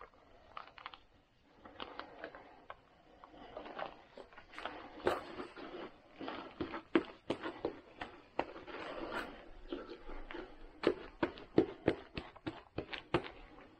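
A putty knife scraping and spreading resin over a fiberglass patch cloth laid on plastic sheeting, with the film crinkling and many small clicks and taps, busier from about four seconds in.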